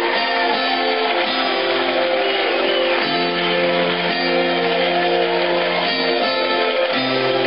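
Background music with sustained chords that change about three seconds in and again near the end.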